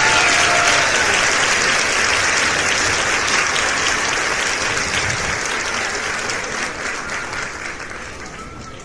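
Dense, steady crackling noise like applause, fading gradually and then cutting off abruptly at the end.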